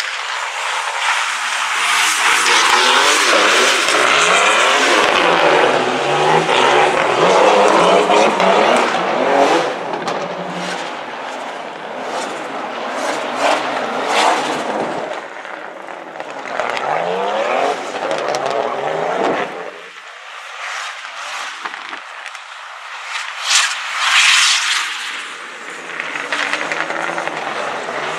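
BMW E46 rally car driven hard, its engine revs rising and falling over and over, loudest in the first third and easing off about two-thirds through before climbing again. Tyres skid on the loose surface.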